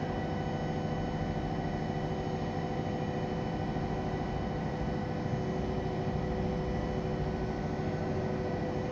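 Milling spindle on a KUKA robot arm running steadily, a constant multi-tone whine over an even hiss as it mills.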